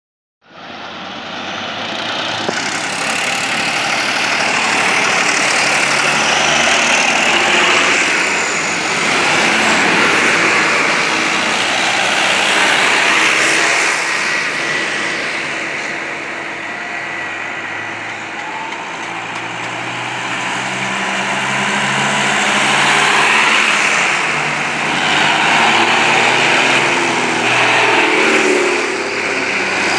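Tractor and truck engines running as a procession of vehicles passes slowly, a dense steady engine noise. About two-thirds of the way through, a nearby tractor's diesel engine adds a steady low engine note close by.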